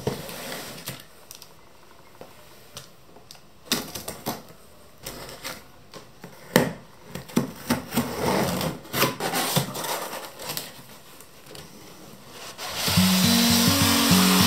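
Handling and opening a large cardboard laptop box: scattered knocks and clicks of the box being moved, then scraping and rustling as scissors slit the packing tape and the flaps are worked open. Background music comes in near the end.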